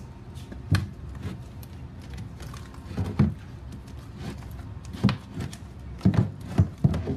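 Hand squishing and working wet slime in a plastic tub, with irregular soft thumps and knocks that come more often near the end.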